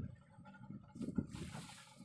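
Sea water sloshing against the hull of a small fibreglass fishing boat rocking in a swell. A short low surge comes about a second in, then a hiss of washing water near the end.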